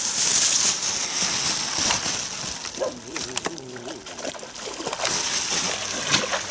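Shallow pond water splashing and sloshing underfoot as a person wades through a muddy margin, over a steady high hiss.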